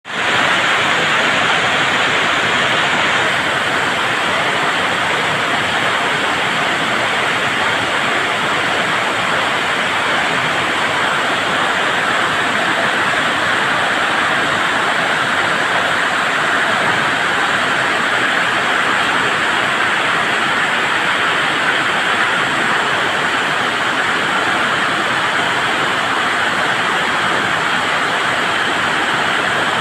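Heavy summer-storm downpour: a loud, steady, unbroken wash of rain noise, loud enough to drown out conversation.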